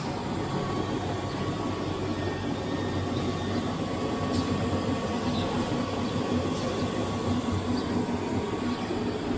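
Steady low mechanical rumble and hum with a faint high steady tone, like machinery running.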